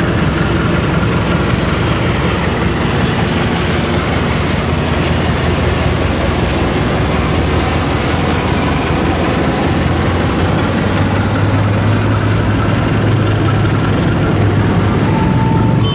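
Diesel-hauled passenger train of new INKA-built K3 Premium economy coaches passing at close range: a steady rumble of steel wheels on the rails.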